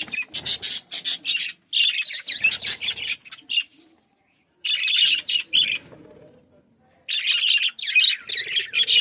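A flock of budgerigars chirping and chattering in quick, loud bursts, with two short lulls in between.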